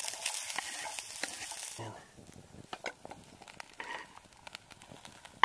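Chopped onions dropped into hot oil in a pan over a wood fire, sizzling hard for about two seconds, then settling to a quieter sizzle with scattered crackles.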